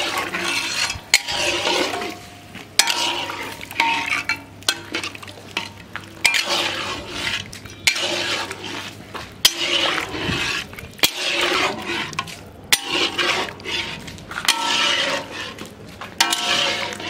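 Long-handled metal spatula stirring and scraping chicken pieces through thick masala in an iron kadai, with repeated scrapes and sharp clinks against the pan, a stroke every second or two.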